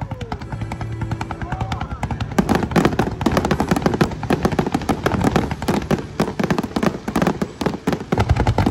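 Fireworks barrage: rapid volleys of launches and shell bursts, many sharp reports a second in quick succession, starting abruptly and growing denser about two seconds in. Show music plays faintly under the first couple of seconds.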